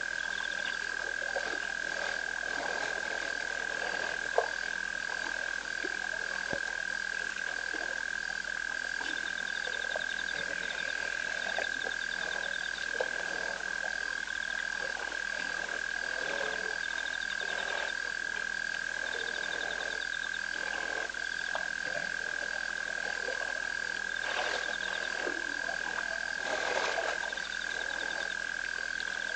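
Frog chorus at a night waterhole: a steady, unbroken trilling drone, with shorter rattling calls coming and going over it. A single sharp click about four seconds in.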